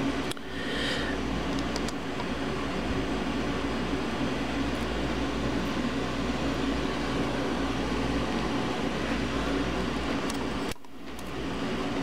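Steady fan-like background hum of room noise, with a few faint light clicks. The level dips briefly twice, once near the start and once near the end.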